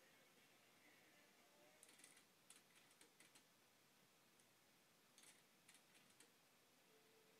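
Near silence, broken by two short runs of faint clicks, about two seconds in and again about five seconds in.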